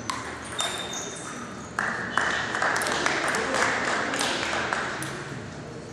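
A table tennis ball clicks sharply off bat and table a few times. About two seconds in, spectators break into applause, which slowly dies away.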